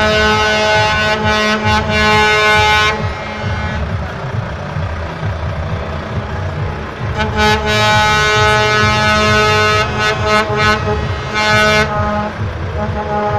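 Truck air horns sounding long, steady chord-like blasts over the low rumble of heavy diesel trucks rolling past. The first blast lasts about three seconds, a longer one comes in the middle, and the horns start again near the end.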